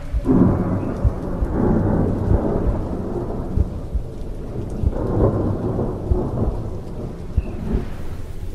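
Thunderstorm sound effect: rain with two long rolls of thunder, the first starting just after the beginning and the second about five seconds in. Low heartbeat thumps from a sound effect sound beneath it.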